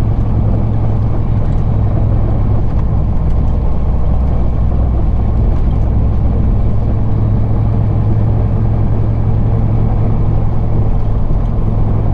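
Semi truck's diesel engine running at a steady low drone, heard from inside the cab, with road and tyre noise underneath.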